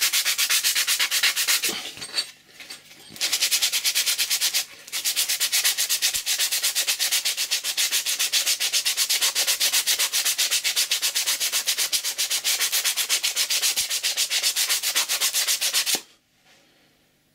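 Sandpaper rubbed rapidly back and forth by hand over a steel axe head, scouring off what is taken for a grey phosphate coating left by the acid rust remover. There are short pauses about two and nearly five seconds in, and the sanding stops about a second before the end.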